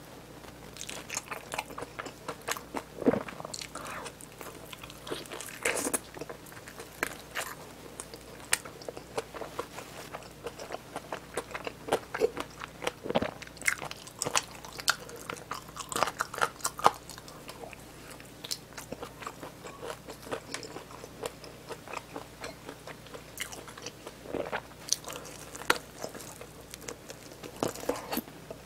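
Close-miked biting and chewing of crispy seasoned fried chicken drumsticks: irregular crunchy bites, some sharper and louder than others, with chewing between them.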